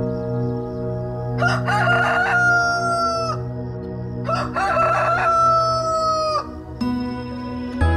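Rooster crowing twice, each crow wavering at the start, then a long held note that drops off at the end, over a steady low hum.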